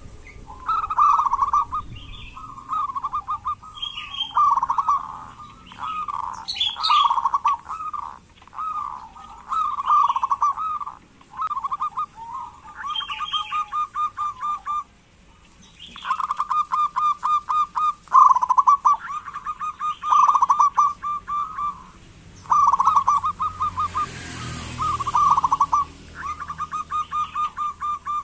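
Zebra dove (perkutut) calling over and over in phrases of fast-pulsed notes, the rattling kerot and cooing bekur calls, with short gaps between phrases.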